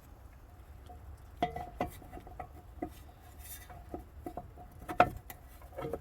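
Scattered light clicks and knocks of a small cover plate and hardware being handled and fitted back onto a wiring control module, with one sharper knock about five seconds in.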